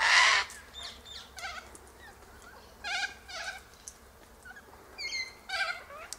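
White cockatoos calling from a tree: one loud, harsh screech right at the start, then a scatter of shorter squawks and calls through the rest.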